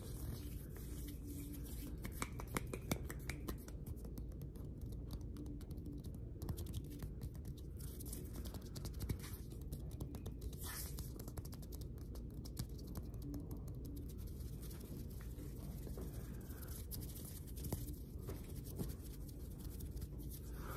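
ASMR hand sounds: bare hands and fingers rubbing, brushing and pressing together close to the microphone, making many small dry crackles and clicks of skin on skin.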